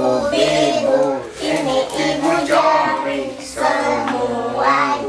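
A group of young kindergarten children singing a song together in unison, holding notes.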